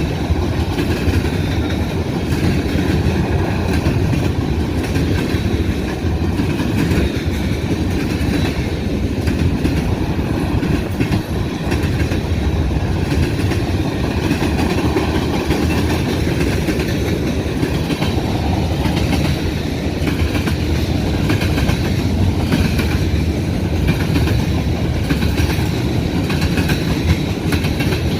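BNSF manifest freight train rolling past steadily, its steel wheels rumbling and clicking on the rails.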